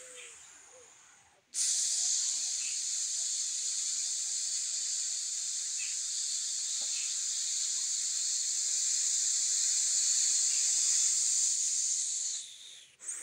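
A man imitating an aeroplane's jet engine with his mouth: a steady high hiss that starts suddenly, holds for about eleven seconds, swelling slightly, and fades out near the end.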